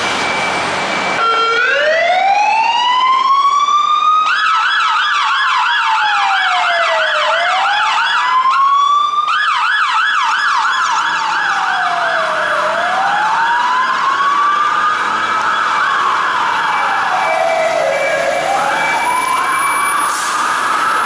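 Sirens of Mercedes-Benz Atego fire engines turning out on a call. A slow wail starts about a second in and rises and falls over roughly five seconds at a time. From about four seconds in it is overlapped by a rapid yelp, which breaks off briefly midway and then resumes.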